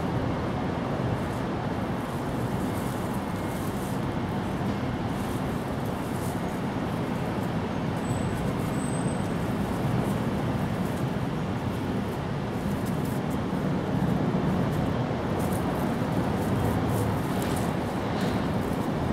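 Steady road traffic noise, a constant low rumble.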